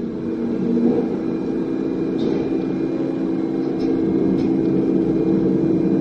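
Hydraulic power unit of an IMABE MP100 two-ram non-ferrous baler running under load as a ram strokes into the compaction chamber: a steady motor-and-pump hum that grows gradually louder.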